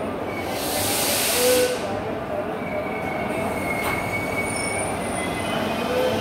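Passenger train coaches rolling slowly alongside a platform, with thin wheel and brake squeals. A loud hiss lasting about a second comes near the start.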